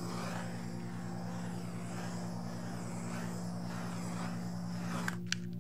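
Handheld butane torch flame hissing steadily as it is passed over wet acrylic pour paint, then shut off with a couple of sharp clicks near the end.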